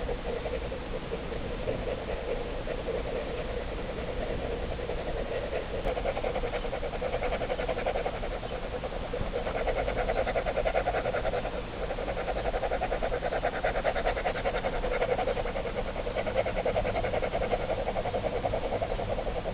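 Ballpoint pen scribbling rapidly on sketchbook paper, a dense fast scratching of short back-and-forth strokes as an area is shaded in, pausing briefly about two-thirds of the way through. A steady low hum runs underneath.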